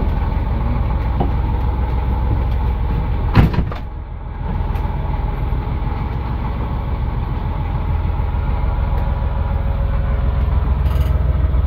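Sailboat's inboard engine running with a steady low rumble, sounding good to the crew though it has been leaking oil into the bilge. A sharp knock comes about three and a half seconds in.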